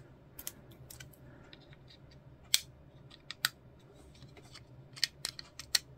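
A handful of short, sharp plastic clicks and taps as small plastic model-kit parts, the wing fillets, are handled and pressed into place, spaced irregularly with several close together near the end.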